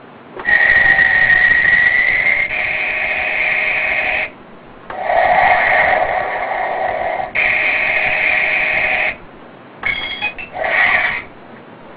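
Electronic sound effects from a Mattel Batmobile toy's small speaker: several steady electronic tones of two to four seconds each with short gaps between, then a few short choppy blips near the end.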